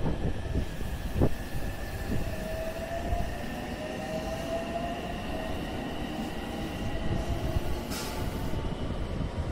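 JR West 227 series 'Red Wing' electric train pulling away from the station, its motors giving a whine that rises in pitch as it gathers speed. A knock about a second in and a short hiss near the end.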